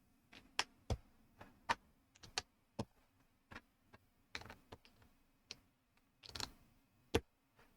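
ZURU MAX plastic building bricks clicking and tapping as they are picked out and pressed together: scattered, irregular sharp clicks, with a brief longer rustle about six and a half seconds in.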